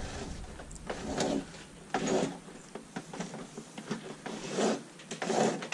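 Electrical cables being pulled by hand through the boat's wiring pipe and hard-top fitting: a few irregular scraping, rustling slides of wire against the fitting.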